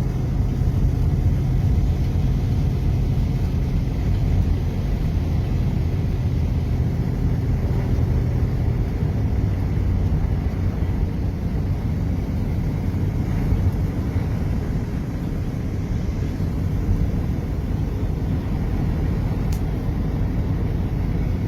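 Steady low rumble of a moving road vehicle, engine and road noise, with a low hum through roughly the first half.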